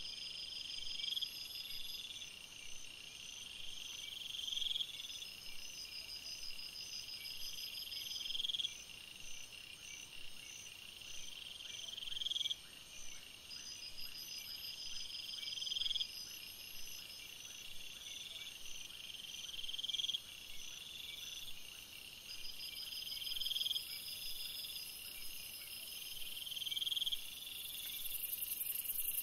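Outdoor night chorus of calling animals: a high-pitched trill about a second long that swells in loudness, repeated roughly every three and a half seconds, with other fast, thin pulsing calls running steadily above it.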